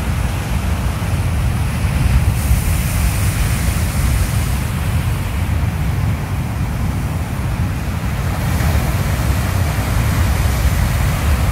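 Ocean surf breaking on a rocky shore: a steady wash of waves, with wind buffeting the microphone in a heavy low rumble that is the loudest part.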